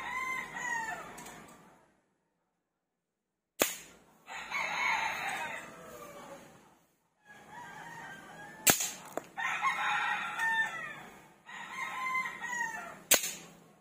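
Three sharp cracks of shots from a suppressed .177 PCP air rifle, spaced about four to five seconds apart. Roosters crow at length between and after the shots.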